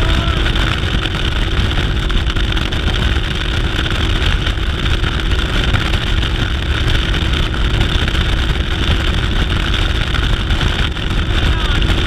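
Yamaha 250 SHO four-stroke V6 outboard driving a bass boat at high speed, a steady engine note with a constant whine and no change in pitch, under low wind rumble on the microphone.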